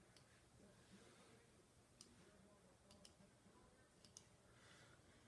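Near silence broken by about four faint, sharp computer clicks a second or so apart, as text is selected and copied through a right-click menu.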